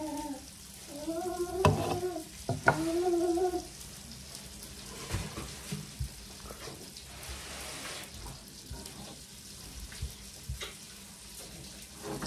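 Drawn-out, sing-song 'aaam' calls, the coaxing sound made while spoon-feeding a baby, with a couple of sharp clicks among them. After that come a soft hiss and scattered small clicks.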